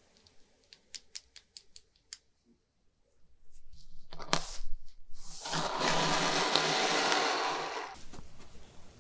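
Small hard plastic game pieces clicking against each other and the table in a quick series of light taps, then a few seconds of loud, dense rattling as a handful of them is shuffled together.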